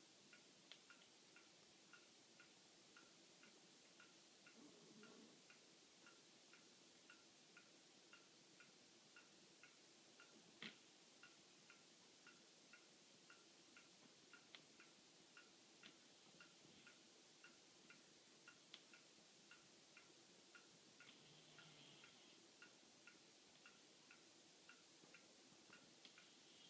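Faint snoring of a sleeping chihuahua, only a few soft breaths, over a steady faint ticking about twice a second, with one sharper click about ten seconds in.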